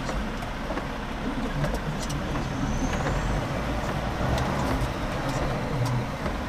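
Steady low rumble inside a semi-truck's cab with its diesel engine idling, with scattered light ticks over it.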